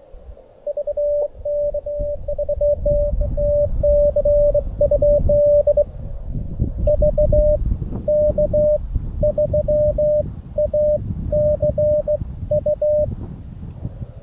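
Morse code (CW) tone of about 600 Hz from a Xiegu G90 transceiver, keyed in quick dots and dashes in two runs with a pause of about a second between them, over a low rumble.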